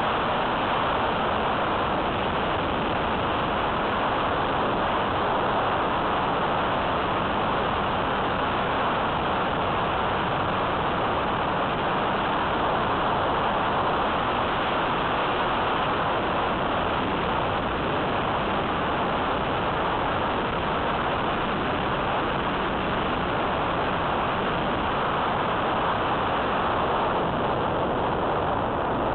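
Electric RC trainer plane (E-flite Apprentice S15e) in flight: a steady, even rush of airflow mixed with its motor and propeller, picked up by a small camera mounted on the plane.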